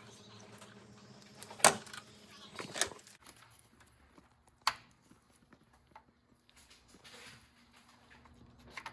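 Hand tools and small hardware being handled during engine reassembly: a few sharp clicks and knocks, the loudest about a second and a half in, two more about a second and three seconds later.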